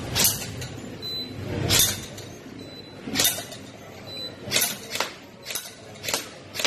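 Airsoft rifle fired in single shots: about eight sharp cracks at uneven intervals, roughly one a second, with BBs clinking on metal targets.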